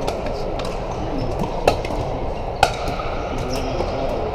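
Sharp pops of pickleball paddles striking a plastic ball, two loud ones about a second apart and several fainter ones, over a steady din of voices and play in a large hall.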